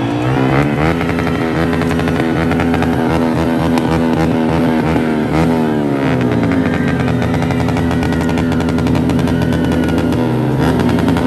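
Several racing motorcycles running at high revs and passing by, their engine notes rising and falling and overlapping as they go past.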